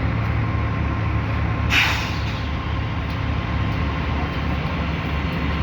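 Truck-mounted concrete pump's diesel engine running steadily, with one short burst of air hiss, like an air brake release, about two seconds in.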